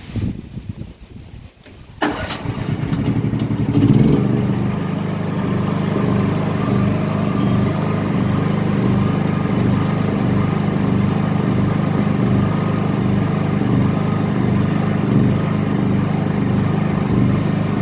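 Gasoline engine of an XLNT SL6500W-SE silent (canopied) generator being started on choke: a few clicks, then about two seconds in it starts suddenly and speeds up. By about four seconds in it settles into steady running.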